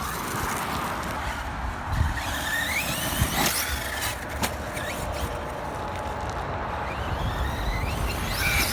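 Electric radio-controlled monster truck's motor whining, rising in pitch as it speeds up a little after two seconds in and again near the end, over a low rumble.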